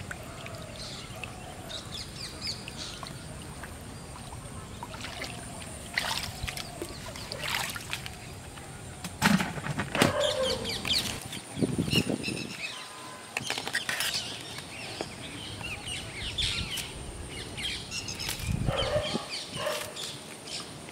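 Birds chirping now and then, with a few sudden splashes and knocks in shallow water, loudest around the middle.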